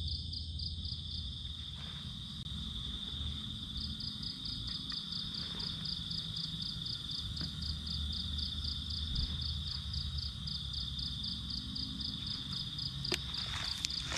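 Insects chirping in the forest: a steady high-pitched trill pulsing about five times a second, with a low rumble underneath and a few sharp clicks near the end.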